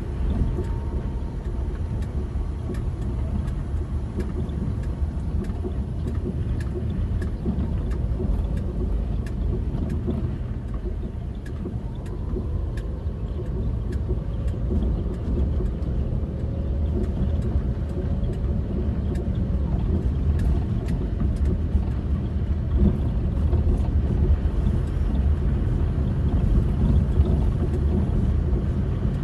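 A car driving on an unpaved dirt road, heard from inside the cabin: a steady low rumble of tyres and engine, with scattered light ticks throughout.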